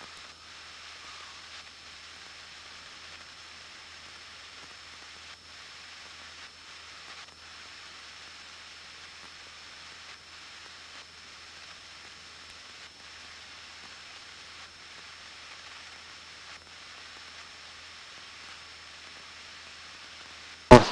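Steady hiss of a Cessna 172N's cabin audio in flight, heard through the intercom feed, with the engine only a faint low hum beneath it. A sharp click near the end as a radio transmission opens.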